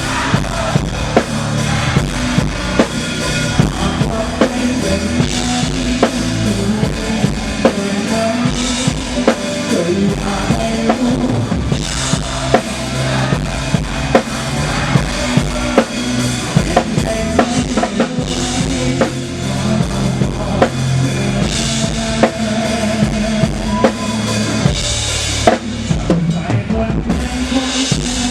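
Live band playing an instrumental passage with no vocals: a drum kit keeps a steady beat on bass drum and snare under sustained pitched instruments.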